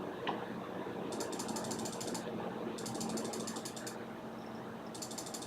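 Several Noctua NF-A14 chromax 140 mm case fans running at full speed inside a PC case: a steady rush of air with a faint low hum. Three times, a stretch of rapid fine clicking comes in over it.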